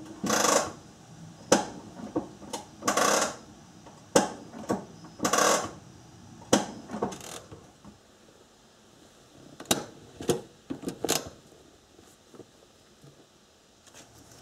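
Metal tools and brake parts clinking and scraping during rear brake work: a string of irregular sharp clicks and short scrapes, busiest in the first half and sparser toward the end.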